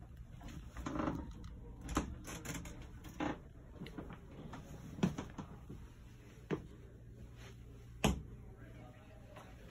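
Footsteps on the floor of a vintage coach bus, slow single thuds about one every second and a half.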